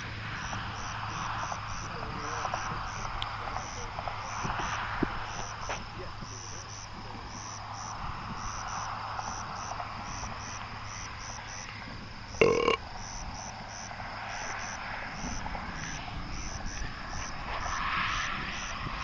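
Insects chirping in a steady rhythm, a few chirps a second, over a rushing noise that swells and fades and a steady low hum. About twelve seconds in, one short, loud pitched call or honk stands out above the rest.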